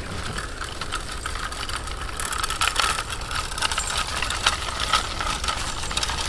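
Crunching and rattling on a leaf-covered gravel path: the wheels of a dog's wheelchair cart rolling and footsteps in dry leaves, a steady run of small clicks and crackles.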